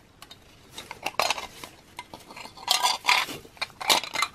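Irregular small clicks and rattles of diecast model car parts being handled and pulled apart: the black engine and interior tub working loose from the red body.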